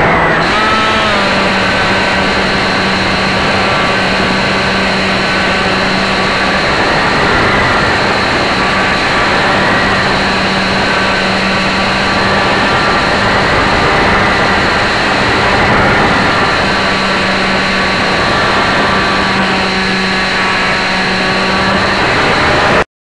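Electric motor and propeller of an AXN Clouds Fly Floater RC plane, heard from a camera taped to the plane's nose, running steadily in flight as a loud drone with a constant hiss. Its pitch drifts slightly up and down with the throttle. It cuts off suddenly near the end.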